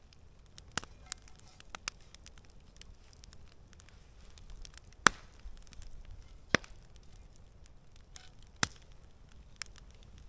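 Wood campfire crackling: irregular sharp pops and snaps over a low steady background, the loudest about halfway through, with two more strong pops later on.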